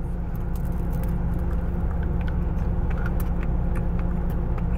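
Steady low hum of a car idling, heard inside the cabin, with faint scattered clicks of chewing.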